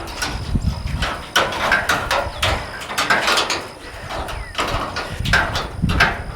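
Wire fencing being handled and wrapped by hand: irregular rattling and scraping with sharp metallic clicks.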